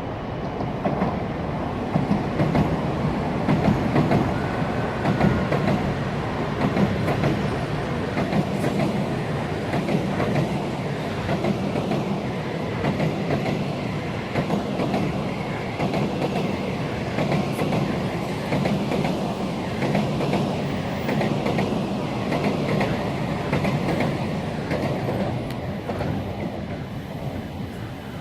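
Tokaido Shinkansen train running over rail joints, its wheels clacking at the joints in a repeated rhythm over the steady rumble of the passing cars. The sound eases off near the end.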